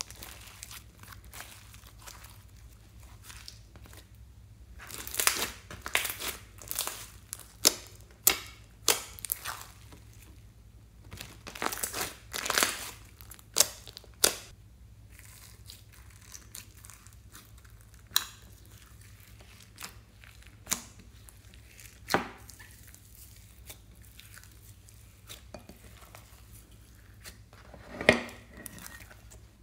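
Slime being squeezed, stretched and pressed by hand: irregular sticky crackles and sharp pops, with two busy stretches of rapid popping, then only a few single loud pops.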